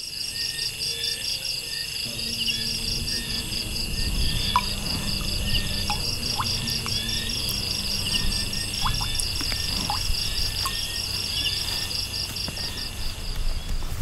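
Outdoor chorus of insects, crickets or similar, chirring steadily with a fast, even pulsing trill. Short falling bird chirps come in now and then over a low rumbling background.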